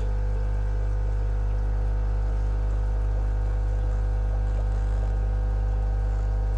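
Steady low electrical hum with many even overtones, from the running fish-room equipment.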